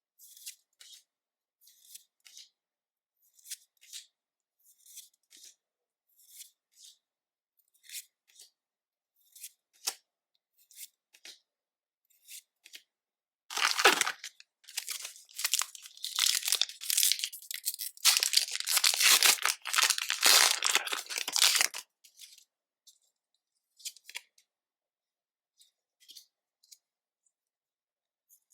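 Pokémon card pack packaging being torn open and crinkled for about eight seconds, starting about halfway in. Before it come short, soft swishes about once a second as the cards and packs are handled, and a few more swishes follow after it.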